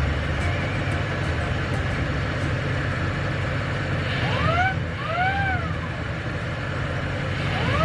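A car engine running with a steady low rumble, while an added sound-effect device on the 1936 Ford sounds a two-part whistle about four seconds in: a short rising glide, then one that rises and falls, like a wolf whistle. The same whistle starts again right at the end.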